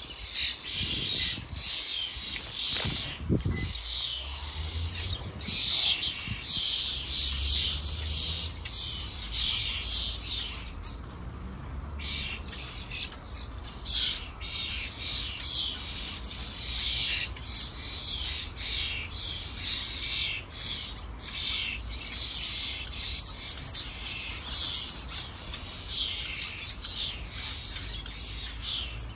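Many birds chirping and twittering continuously, with a steady low rumble underneath.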